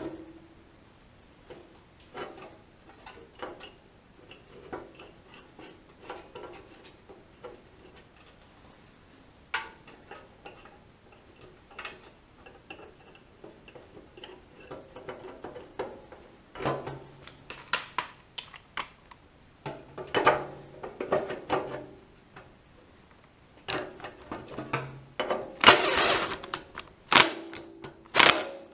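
Small steel bolts, washers and nuts clinking and tapping against a painted sheet-metal panel as they are fitted by hand. A loud run of rapid clicking comes near the end as a handheld tool tightens the nuts.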